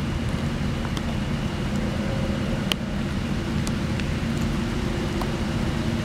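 Steady low rumble of highway traffic, with a handful of sharp ticks of raindrops, the loudest about halfway through.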